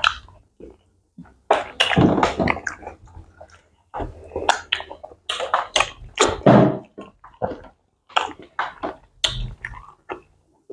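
Close-up mouth sounds of eating pounded yam with ogbono soup: irregular runs of wet chewing and smacking, broken by short silent gaps.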